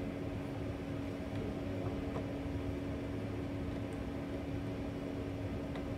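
A steady mechanical hum holding one constant low tone, with a few faint light ticks.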